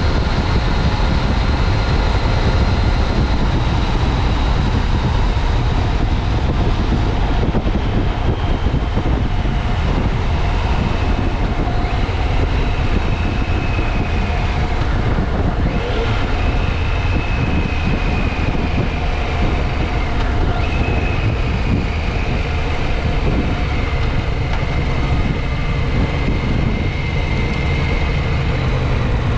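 2015 Yamaha FJ-09 Tracer's 847 cc inline-three running under way, heard through heavy wind rush on a helmet-mounted microphone. A whine drifts up and down in pitch as the speed changes.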